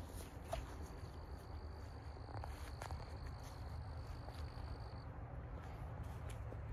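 A few soft footsteps on a leaf-strewn woodland path, with an insect's steady high trill from about a second in until about five seconds in, over a low rumble on the microphone.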